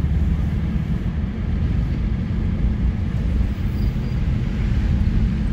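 A car driving: a steady low rumble of road noise with no distinct events.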